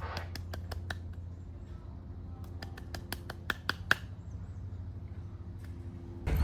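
Quick light claps of a person's hands being pushed together by an animal: a flurry in the first second and another in the middle, over a steady low hum.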